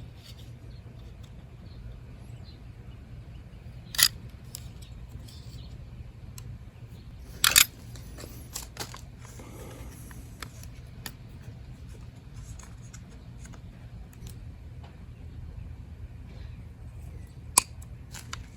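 Hand tools snipping and clicking at an electrical power cord: a sharp snip about 4 seconds in, a louder double snip in the middle with a few small ticks after it, and one more near the end, over a steady low hum.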